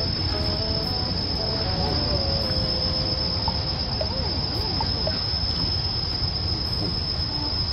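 Steady, high-pitched drone of insects, unbroken on one pitch, over a constant low background noise.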